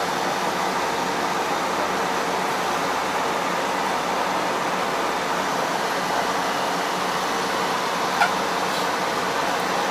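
Steady rushing noise with a low hum inside the driver's cab of an articulated light-rail tram, with a single click about eight seconds in.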